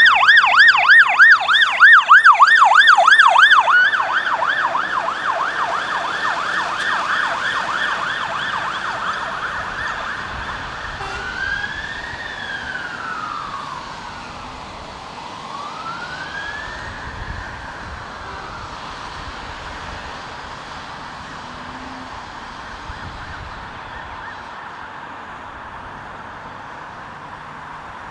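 Electronic siren of a Scania fire engine on a fast yelp, loud as it passes and then fading as it drives away. About eleven seconds in it switches to a slow wail that rises and falls twice and fades out, leaving steady road traffic noise.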